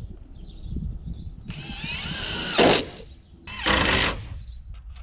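Power drill run twice: a run of about a second that rises in pitch, then a shorter one. It is driving screws into wooden siding boards.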